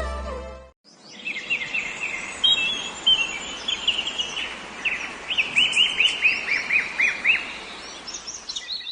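Birds chirping: short, sharp, arching calls repeated over a faint outdoor hiss, with a quick run of about five notes a second a little past the middle. Song music cuts off just before the birds begin.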